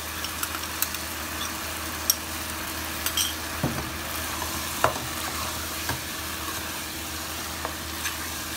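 Chicken pieces, tomatoes and peppers sizzling in oil in a nonstick pot while a plastic spoon stirs them, with scattered scrapes and knocks of the spoon against the pot, the loudest about four and five seconds in.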